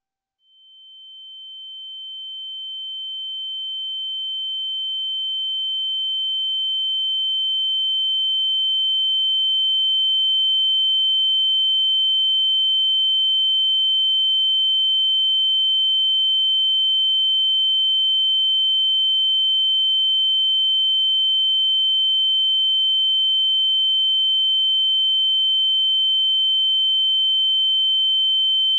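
Ear-ringing (tinnitus) sound effect: a single steady, high-pitched electronic tone. It fades in from silence, grows louder over the first ten seconds or so, and then holds level, with much fainter tones above and below it.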